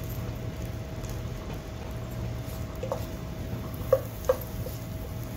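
Butter melting with a low sizzle in a nonstick pan, and a wooden spatula stirring it, knocking sharply against the pan two or three times in the second half. A steady low hum runs underneath.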